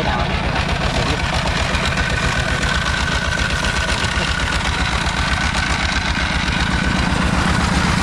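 Engine-driven puffed corn snack extruder running steadily while it pushes out snack rings: a fast, even low pulsing from its engine with a steady high whine over it.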